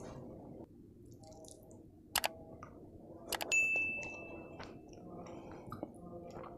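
Subscribe-overlay sound effect: two sharp clicks, then a single bright ding that rings for about a second, over faint chewing.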